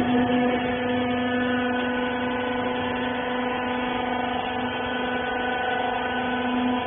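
Clothes textile baler machine running: a steady machine hum with one clear low pitch and its overtones, unchanging throughout.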